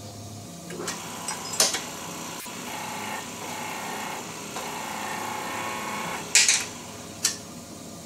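Shop press pressing an old bearing shaft into a water pump impeller: a steady mechanical whine for several seconds, with a sharp metallic click about a second and a half in and two more near the end after the whine stops.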